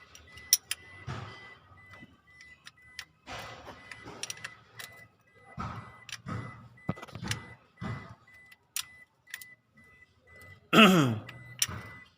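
Scattered clicks, clinks and scraping of hands and metal tools at work, fitting a crankshaft position sensor under the engine. Near the end a louder sound slides down in pitch for about a second.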